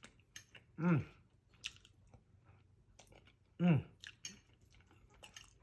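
A man chewing a mouthful of curry goat and rice, with small wet mouth clicks, and two short appreciative "mmm" hums that fall in pitch, about a second in and again past the middle.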